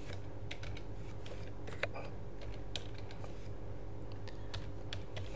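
Computer keyboard being typed on: a scattered run of light key clicks over a faint steady hum.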